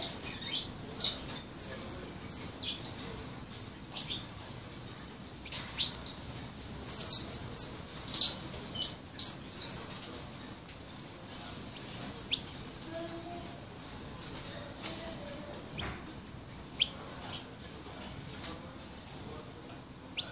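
Young caged songbird practising its song: quick runs of short, high twittering notes in two long, dense bursts, then only a few scattered notes in the second half.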